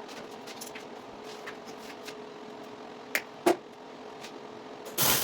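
Low steady hum with scattered light ticks and clicks of metal being handled, and two sharp knocks about three seconds in. Right at the end a loud crackling hiss cuts in.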